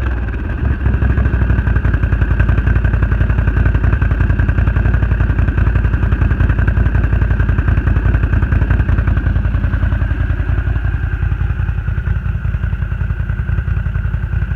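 Can-Am Renegade 1000 ATV's V-twin engine idling with an uneven, choppy beat: the misfire it has.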